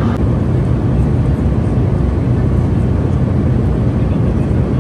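Steady low rumble of airliner cabin noise in flight: engine and airflow noise heard from a passenger seat.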